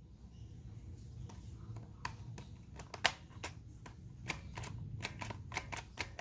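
Homemade paper rifle's charging handle and action being worked by hand: a run of small, irregular clicks and taps of paper parts, the sharpest about three seconds in, over a low steady hum.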